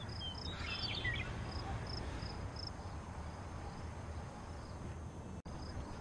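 Faint crickets chirping in short, evenly repeated high pulses, with a brief bird twitter about a second in. The sound drops out for an instant near the end.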